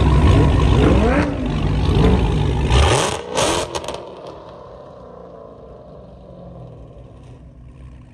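Performance cars' engines rumbling and revving as they drive past slowly, with the pitch rising and falling, then a few sharp loud cracks about three seconds in. After that the sound drops to a quieter low engine hum.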